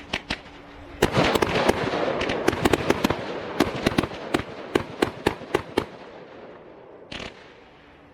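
Fireworks going off: a loud burst about a second in, followed by a rapid string of sharp cracks over the next few seconds that thin out and fade, then one short pop near the end.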